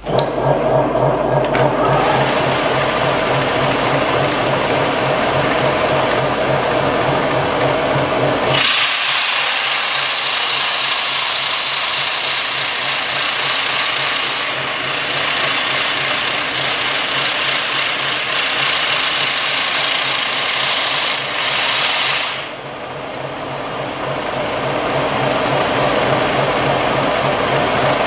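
Curved-edge belt sanding machine running with a steady motor and belt hum. About nine seconds in, a loud, hissing grind starts as a wooden strip is pressed against the sanding belt; it lasts about thirteen seconds, after which the machine runs on alone.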